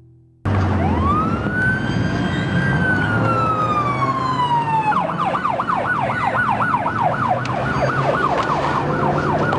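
Police car siren starting abruptly: one long wail that rises and then slowly falls, then switching about halfway through to a fast yelp of about four cycles a second, over a low rumble of traffic.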